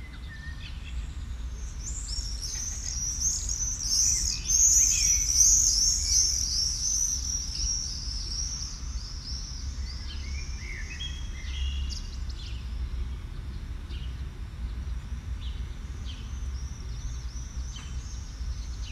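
High, rapid bird-like chirping, densest and loudest in the first half and thinning out later, over a steady low rumble.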